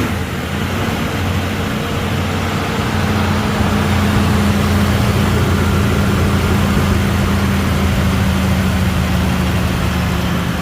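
1999 Isuzu Trooper's 3.5-litre V6 idling steadily, just after catching on a jump-start from a booster pack because its own battery is dead. It runs smoothly enough, sounding not too bad.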